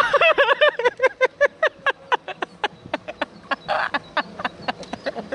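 A girl laughing hard in a fast, high-pitched run of 'ha-ha' pulses that starts suddenly and slowly trails off, with a gasping breath in about four seconds in.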